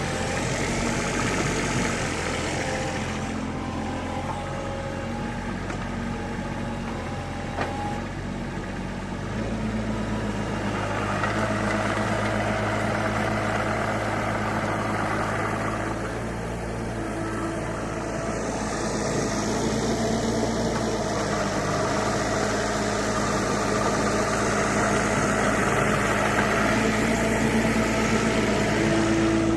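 CAT 301.7CR compact excavator's diesel engine running steadily. Its note steps up in pitch about nine seconds in as the revs rise. A hiss swells in and fades twice over the running engine.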